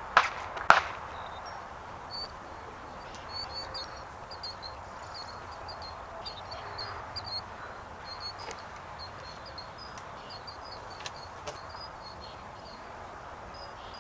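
Two sharp knocks on a wooden frame about half a second apart, then faint bird chirping over a steady outdoor background, with a few light taps later on.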